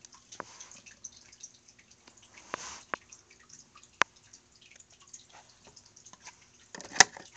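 Scattered small clicks and taps of plastic Littlest Pet Shop toys and props being handled and set down, with a few sharper single clicks and the loudest one near the end.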